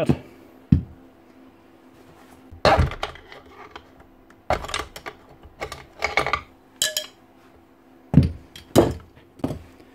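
Screwdrivers and metal gearbox parts of a Hilti TE905 demolition hammer clinking and knocking as the gear train is levered apart and lifted out: a series of separate sharp metal knocks with short pauses between.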